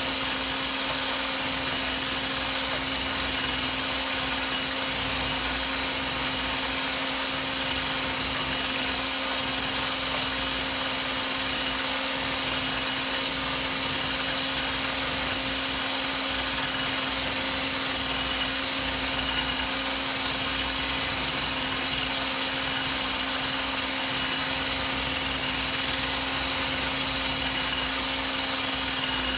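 Handheld milk-frother-style wand whisk running steadily, its coil whisk spinning in a thin liquid lotion mixture in a stainless steel bowl: an even motor hum at one pitch with a high hiss.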